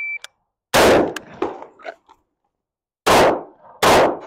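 A short high electronic beep, then a single rifle shot about a second in, its report trailing off in echo. After a pause of about two seconds come two shots from a Shadow Systems MR920 9mm pistol, under a second apart. This is a rifle-to-handgun transition.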